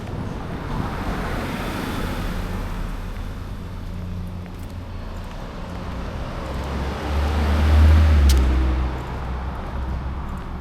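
Road traffic: cars passing on the street, tyre and engine noise swelling and fading. The loudest pass, with a deep rumble, comes about eight seconds in.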